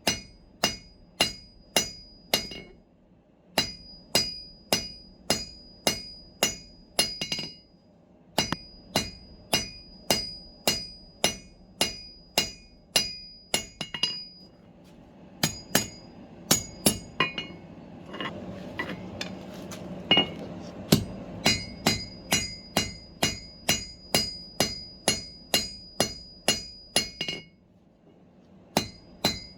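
Hand hammer striking hot steel on an anvil, about two blows a second in runs broken by short pauses, each blow leaving a bright metallic ring. A rushing hiss sits under the blows for a few seconds in the middle.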